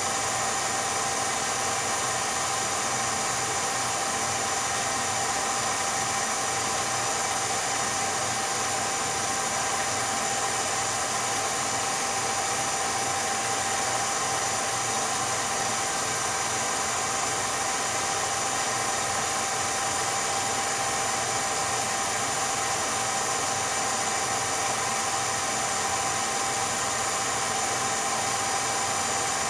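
Steady whirring hiss with a constant high hum, unchanging throughout. It is the background noise laid onto a silent 8mm home-movie transfer, not sound from the scene.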